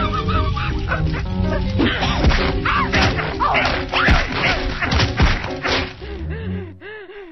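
Cartoon soundtrack: music under high, bending cries and several hits. Near the end the music drops away, leaving a string of short rising-and-falling whimpering cries.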